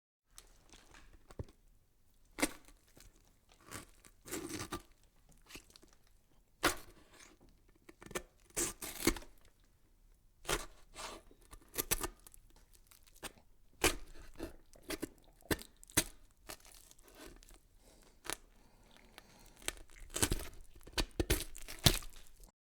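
Irregular crackling, tearing and rustling noises, short sharp bursts at uneven intervals with brief gaps between them.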